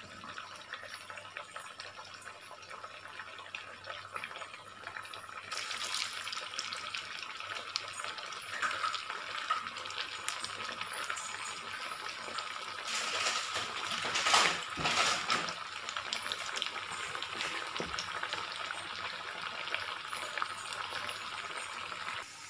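Potato smileys frying in hot sunflower oil in a kadai, giving a steady sizzle. The sizzle grows fuller about five seconds in and is loudest a little past the middle.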